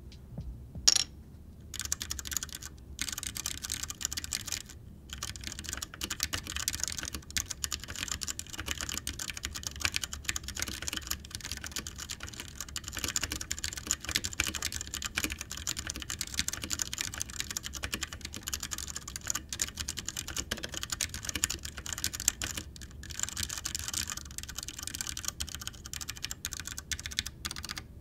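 Fast, continuous typing on a Ducky One 2 Mini 60% mechanical keyboard with Cherry MX Brown tactile switches: a dense run of keystroke clicks with a few short pauses.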